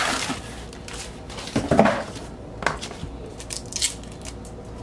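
Handling noise as a shrink-wrapped vinyl LP is lifted out of a cardboard mailer box and set down on a desk: cardboard scraping and rustling, with a knock about two seconds in, the loudest sound.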